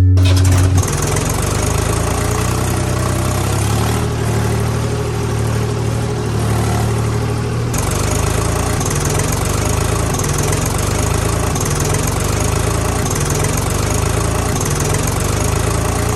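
A heavy vehicle engine running steadily at idle: a low rumble with a slowly repeating pulse and a hiss over it.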